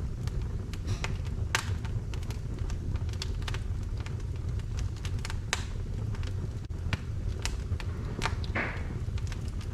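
Firewood burning in a wood-fired fireplace: irregular sharp crackles and pops from the wood over a steady low rumble.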